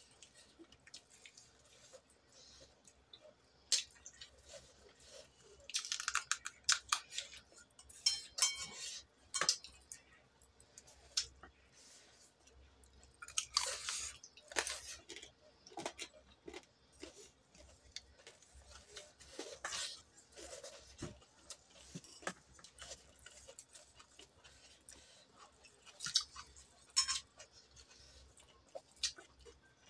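Close-up chewing and smacking of a mouthful of chicken curry and rice, with irregular clusters of wet clicks and crunches between quieter stretches.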